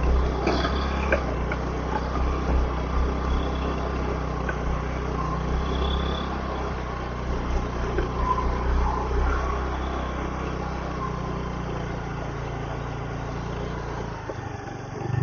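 Motorcycle engine running steadily under load as the bike climbs a steep hill road, with road and wind noise over it. The engine note dips briefly near the end.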